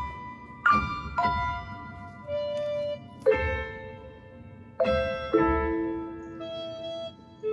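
Background music: a slow tune of single piano-like notes, each struck sharply and ringing out as it fades.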